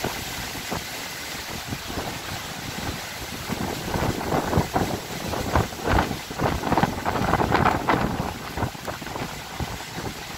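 Gusty wind buffeting the microphone: an uneven rushing with many short rumbling surges, louder from about four seconds in.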